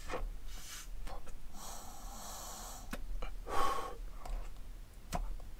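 Breath blown through the vent of a Harley-Davidson vented gas cap in several breathy, hissing puffs. It tests that the cap still vents with silicone packed under its top.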